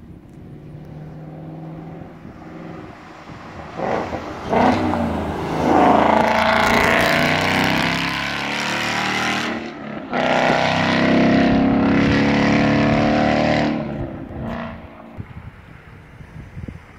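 2015 Ford Mustang GT's 5.0 V8 through a Roush axle-back and MRT H-pipe exhaust, driving up and past at full throttle. Two short revs come about four seconds in, then a hard pull rising in pitch. A brief dip about ten seconds in, like a gear change, is followed by a second pull that cuts off about fourteen seconds in, and the sound fades away.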